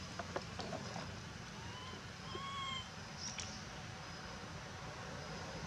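A few short calls that rise and then fall in pitch, from an animal, over a steady low rumble, with a few light clicks in the first second.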